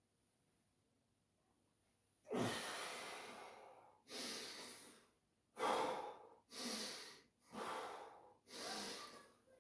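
A man breathing hard from the exertion of weighted pistol squats: six heavy, noisy breaths, starting about two seconds in with one long breath, then shorter ones about one a second.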